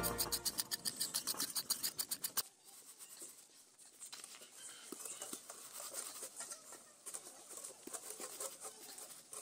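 A serrated knife scraping quickly over a wet mongoose skin in a metal bowl of water, about ten even strokes a second, to clean the carcass; it stops abruptly after about two and a half seconds. Faint outdoor background follows, with a few soft knocks.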